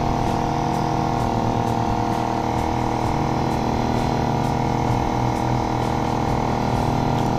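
Air compressor feeding a pneumatic nail gun, its motor running steadily at an even pitch.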